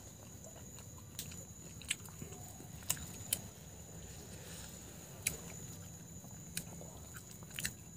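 Scattered sharp clicks and cracks of grilled prawn shells being peeled by hand and chewed, about seven spread over the stretch, against a faint steady hum.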